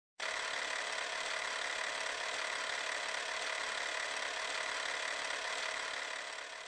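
A steady mechanical whirring, rattling noise effect that cuts in suddenly, holds level, then fades out near the end.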